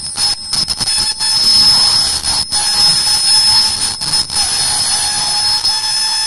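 Automatic face mask making machine running at speed: a steady high-pitched whine over continuous mechanical noise.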